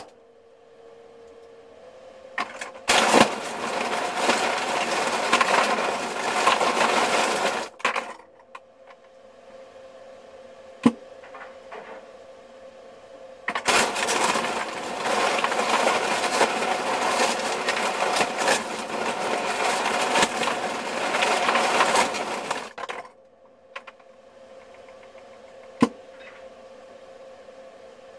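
Refrigerator in-door ice dispenser running twice, several seconds each time: the ice bin's auger turns and the cubes clatter and grind as they are pushed out. Between the runs there is a steady hum, with a single sharp click a few seconds after each run.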